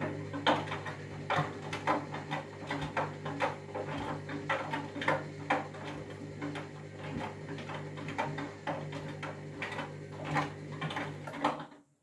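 Front-loading washing machine turning its drum in the wash: a steady motor hum with irregular knocks and clicks from the backpacks tumbling in the drum. The motor stops shortly before the end.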